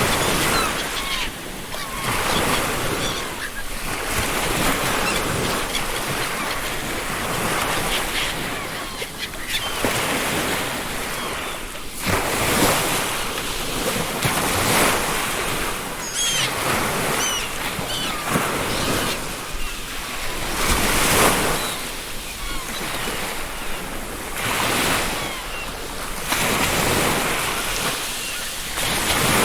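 Ocean surf breaking on a beach, the wash rising and falling in repeated surges every few seconds. A few brief seagull calls are heard in the middle.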